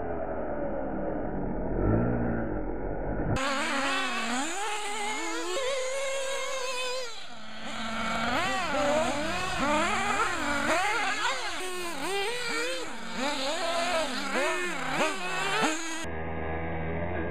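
Small 3.5cc two-stroke nitro engines of 1/8-scale RC buggies racing, revving up and down over and over, about once a second. The sound changes abruptly twice, about three seconds in and near the end, as the clips cut.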